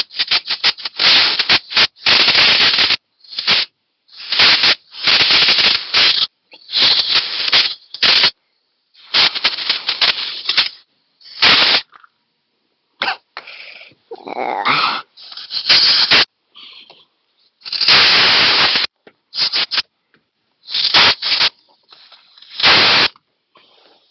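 Over a dozen short, loud hissing spray blasts with brief gaps, blown into the threaded bolt holes of an excavator's final-drive hub to clean the rust and crud out of the threads.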